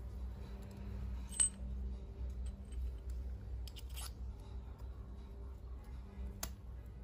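Small handling clicks of feather quills and a metal bicycle valve as feathers are pushed in by hand. There are a few sharp clicks; the loudest, about a second and a half in, has a brief metallic ring, and a cluster follows around four seconds in. A low steady hum runs underneath.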